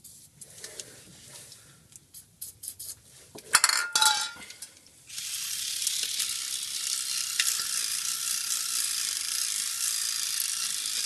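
A brush scrubbing the aluminium case of a Subaru 4EAT automatic transmission: a steady scratchy hiss that sets in about five seconds in. Before it come light clicks, with a short clatter of clinks about three and a half seconds in.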